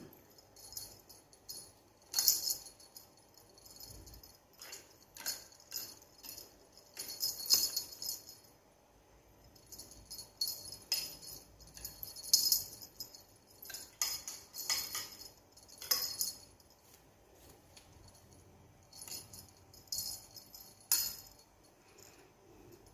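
Small jingle bell on a feathered cat wand toy jingling in short, irregular shakes as the toy is waved and jerked about.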